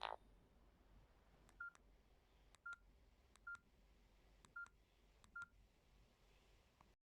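Five short single-pitch key beeps from a Samsung Metro 350 feature phone, each with a faint button click, spaced roughly a second apart as its keys are pressed. The tail of a ringtone cuts off right at the start.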